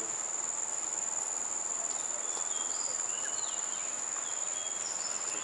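Steady, high-pitched drone of insects in tropical greenery, with a few faint short chirps partway through.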